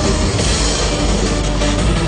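Loud, heavy, rock-like concert music. A brighter hiss rises briefly from about half a second in.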